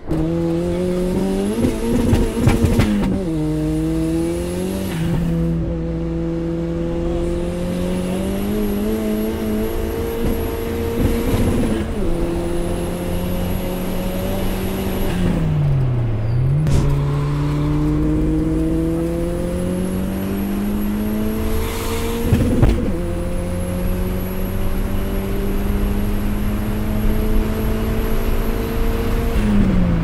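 Turbocharged Tofaş Doğan engine pulling hard through the gears. Revs climb steadily and fall at each gear change, several times. A thin high whistle rises with the revs on each pull.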